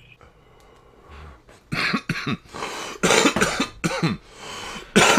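A man coughing hard, a string of harsh coughs starting a little under two seconds in and going on repeatedly, brought on by a lungful of smoke from a glass bong.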